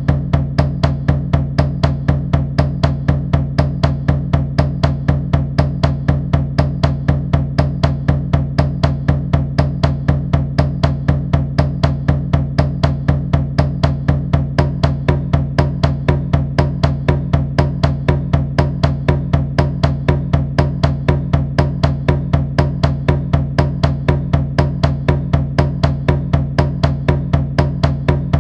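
Drum struck in a steady, unchanging beat of about three strokes a second, over a deep sustained low resonance.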